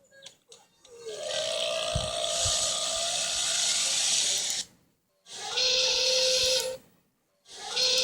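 Dinosaur burp sound effects: one long burp of nearly four seconds starting about a second in, then two shorter ones. Each is a hiss with a steady held tone running through it.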